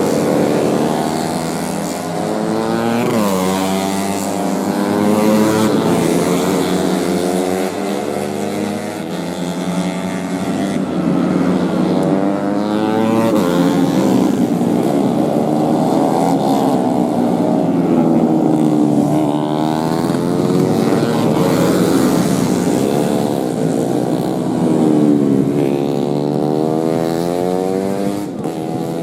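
Several four-stroke racing motorcycles running at high revs with overlapping engines, their pitch repeatedly rising and falling as they accelerate, shift and go past.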